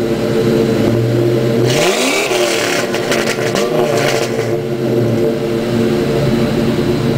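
Ford Mustang GT's 4.6-litre V8 exhaust idling, blipped once about two seconds in, the pitch rising and falling back, with a smaller blip a second later before it settles back to a steady idle.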